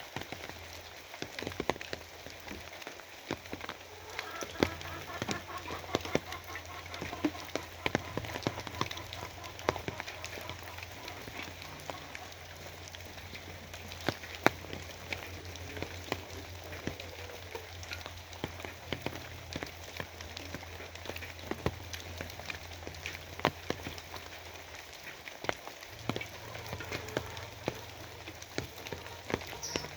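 Steady rain, with many individual drops ticking sharply on a hard surface over an even patter.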